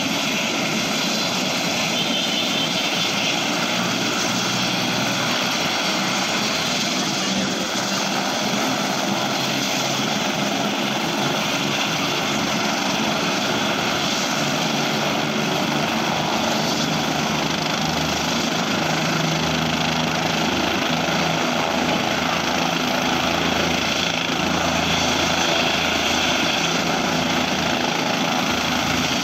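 Light helicopter running on the ground: a steady engine and rotor noise with no let-up. A deeper rumble grows in the last third.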